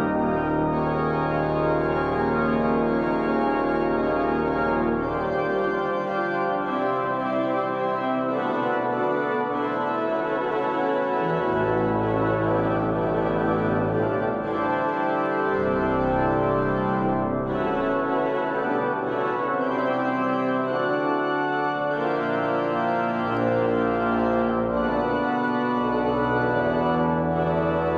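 Pipe organ (Wegenstein 1909, rebuilt by Aeris Orgona in 2019) playing without a break in full sustained chords. Deep pedal bass notes drop out about five seconds in and come back in several times.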